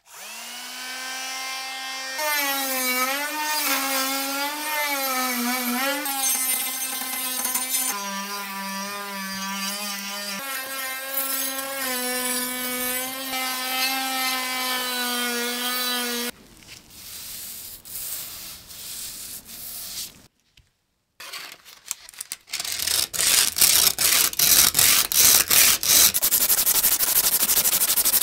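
A power tool's motor runs with a steady whine whose pitch wavers and dips under load. After a break, fast rhythmic rubbing strokes follow, about three a second, as a workpiece is worked by hand.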